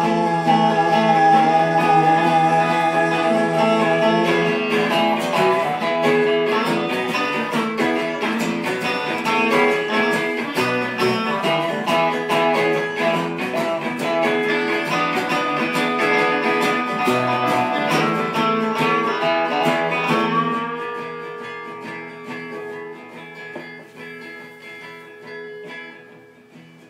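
Live electric guitar and acoustic guitar playing an instrumental passage between sung lines, strummed and picked. About 20 seconds in the playing drops away and the sound thins and fades toward the end.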